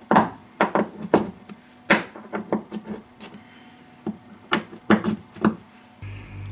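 Metal parts and hand tools clinking and knocking irregularly while a ride-on mower's transaxle is taken apart. A steady low hum comes in near the end.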